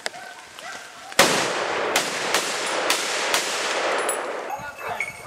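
A rapid volley of about five gunshots from hunting guns, the first about a second in, with the reports echoing on through the wooded gully for a few seconds before fading.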